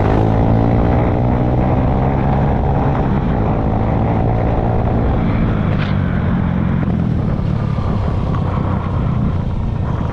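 Single-cylinder four-stroke engine of a carbureted Honda CG Fan motorcycle running while the bike is ridden, its note rising and falling with the throttle.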